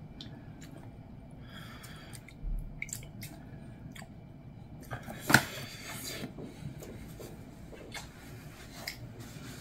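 Wooden chopsticks clicking and scraping against a stainless steel bowl while tossing spicy noodles with young radish kimchi greens, in scattered short clicks, with one louder sharp sound about five seconds in.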